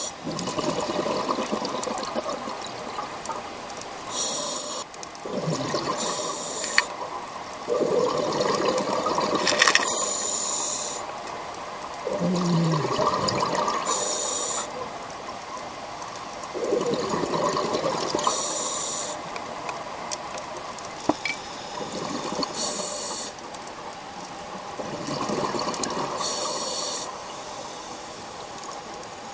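A scuba diver's regulator breathing, heard underwater. Each short hiss of an inhalation through the regulator is followed by a longer gurgle of exhaled bubbles, in a steady cycle about every four seconds.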